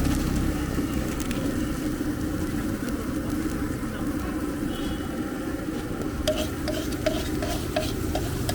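Street-cart chaat frying and sizzling in a pan while being stirred. About six seconds in, a metal utensil starts clinking against the pan in a steady rhythm, about three strikes a second.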